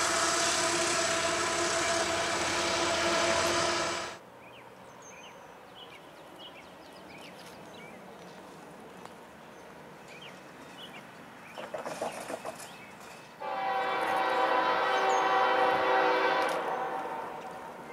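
A CN freight locomotive's horn blowing loudly over the rushing noise of the passing train, cut off suddenly about four seconds in. After a quiet stretch with faint chirps, a distant approaching train sounds its horn about thirteen seconds in for about three seconds, then fades.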